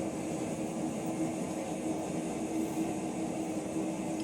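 Blacksmith's forge running with a steady rushing noise and a constant low hum, cutting off suddenly at the end.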